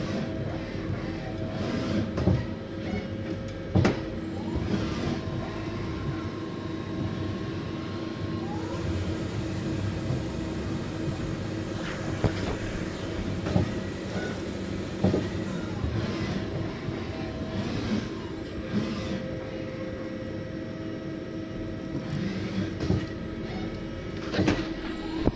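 XYZ CT65 CNC lathe running: a steady hum, with a few higher whines that come and go, and a sharp click or knock every few seconds.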